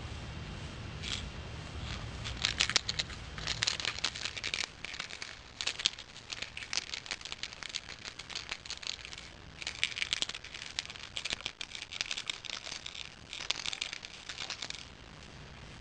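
Loose broken parts rattling inside a 2-amp charger's case as it is shaken, in irregular bursts of rapid clicks with short pauses between them.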